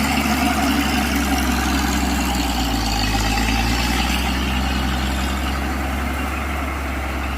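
Road-repair machine's heavy engine running steadily, with a slight change in its note a few seconds in and a little quieter near the end.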